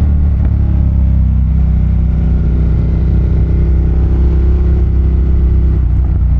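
Ducati Monster 1200's L-twin engine running under way at a steady pace, its pitch holding nearly level with little throttle change.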